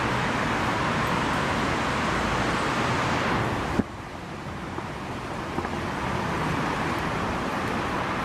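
Road traffic noise. About four seconds in there is a click and the noise drops abruptly, then slowly builds back.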